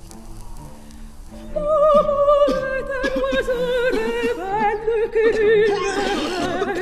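Background music: quiet low instrumental notes, then about a second and a half in an operatic voice comes in loudly, holding long notes with wide vibrato that slowly step down in pitch.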